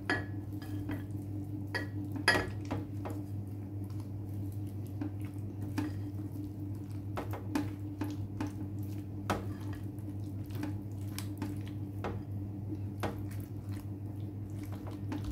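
Silicone spatula stirring and folding mayonnaise into chopped potato salad in a glass bowl: soft wet squishing and irregular clicks of the spatula against the glass, over a steady low hum.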